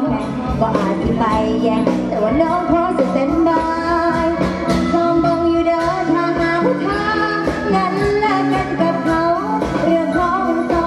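A girl singing an Isan folk song into a microphone, backed by a live pong lang folk band with drums.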